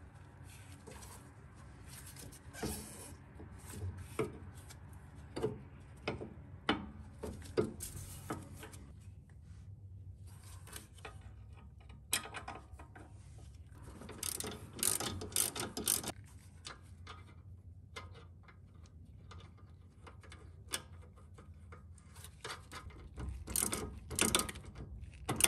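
Hand tools working a sway bar end-link nut under a car: scattered sharp metal clicks and taps, a busier stretch of rattling about halfway through, and a 14 mm wrench clicking in quick strokes near the end as the nut is tightened.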